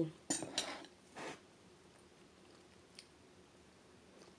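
A person chewing and biting a mouthful of rice noodles close to the microphone, a few short wet bursts in the first second or so, then a quiet room with a single small click about three seconds in.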